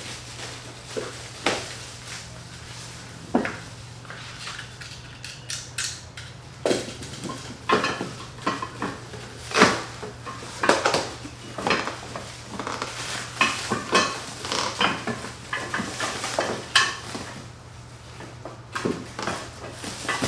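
Unpacking a boxed cargo bed slide: plastic wrap crinkling and tearing, with scattered clinks and knocks of metal rails and parts, busier from about a third of the way in.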